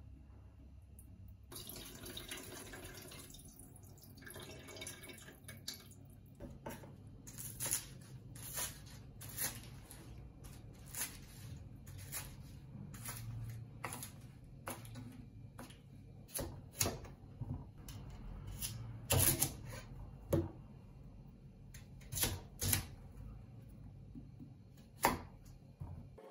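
Kitchen knife cutting vegetables on a plastic cutting board: a run of sharp, irregular taps, about one a second, with a few louder strikes in the second half.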